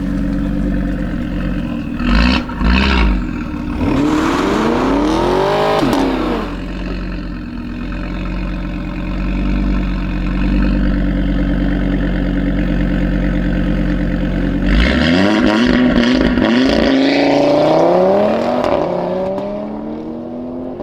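Tuned Audi RS3 Sportback's turbocharged five-cylinder engine through a Milltek exhaust, running at a steady note with two short loud blips about two seconds in. A rev climbs and falls around five seconds, and a longer rising run starts about fifteen seconds in and eases off near the end.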